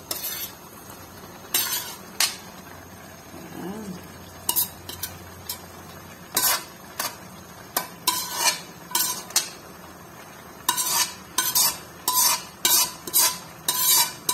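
Chopped cabbage and carrots being scraped out of a metal bowl into a wok, with metal scraping and tapping against metal. The strokes are sparse at first, then come about two a second in the second half, each with a short ring.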